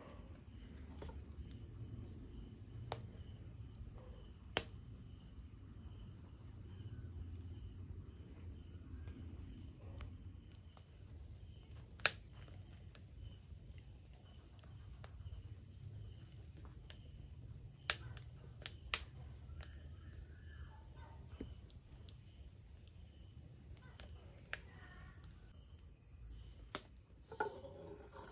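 Crickets chirping steadily at night over a low rumble, with a handful of sharp, isolated pops from a burning wood fire.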